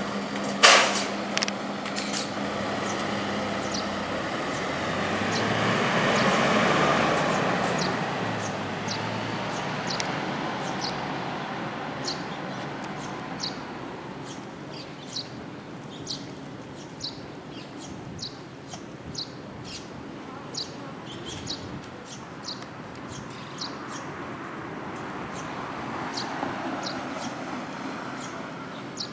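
A small bird repeats short, high chirps about once a second, over a steady traffic hum that swells twice as vehicles pass. A sharp click comes near the start.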